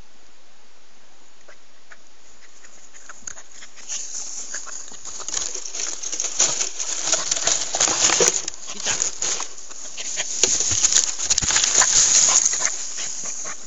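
Dry grass and twigs rustling and crackling close against the microphone, starting about three seconds in and building to two loud spells, the second ending as the camera lying in the brush is moved.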